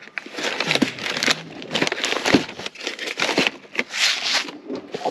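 Plastic and paper food packets crinkling and rustling as hands rummage through a pantry drawer and pull out a cardboard pasta box, with a few sharp knocks among the rustling.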